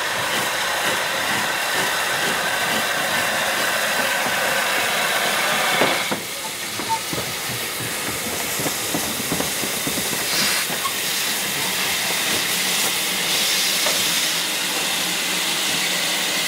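Steam locomotive letting off steam: a loud, steady hiss that cuts off suddenly about six seconds in. After it come softer, shorter hisses of steam and a few light clicks and knocks.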